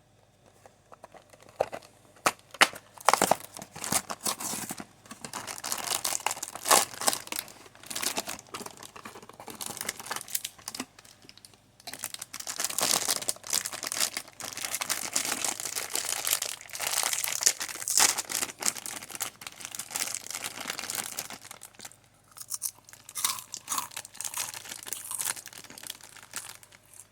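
Plastic snack packaging crinkling and tearing as it is handled and opened, in bursts of sharp crackles with short pauses.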